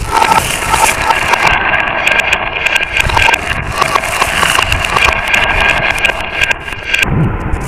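Glass marbles rolling and clattering down a marble run track: a dense stream of clicks over a steady rolling rumble, thinning out briefly near the end.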